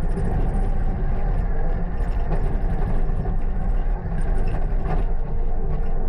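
Loader's engine running steadily at a constant throttle as the machine drives over a dirt track.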